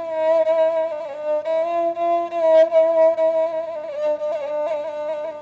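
Rebab, the Upper Egyptian bowed spike fiddle, playing an instrumental melody of long held notes with small quick ornamental turns, with no singing.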